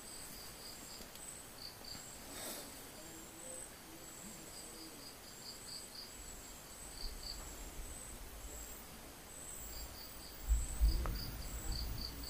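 Faint high chirping of crickets in short pulsed trains. Near the end there is a low thump with a brief rumble.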